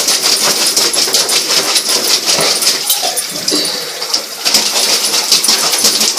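Dog scrabbling at a bathtub drain, trying to stop the water from going down it: a rapid, irregular run of clicks and scrapes that eases off briefly a little past halfway, then picks up again.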